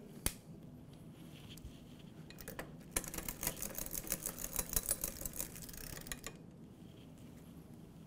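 Mountain bike drivetrain with a rear derailleur, turned by hand on a stand-up bike: a single click early on, then about three seconds of fast, even ticking as the cranks turn, the rear wheel spins and the chain is shifted up the rear cassette, stopping suddenly.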